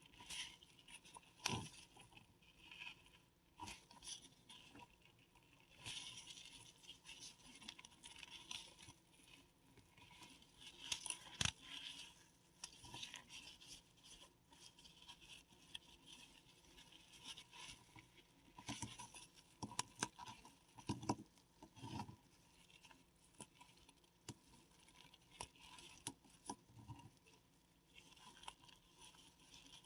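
Paradichlorobenzene mothball tablets crushed between the fingers: irregular fine crackling and gritty crunching as they crumble to powder, with several sharp snaps now and then.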